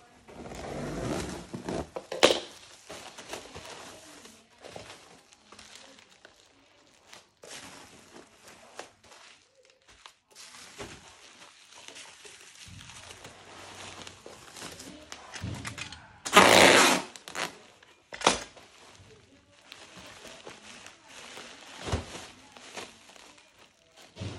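Handling noise: irregular crinkling and rustling with a few sharp knocks, and one loud burst of rustling noise lasting about a second, some sixteen seconds in.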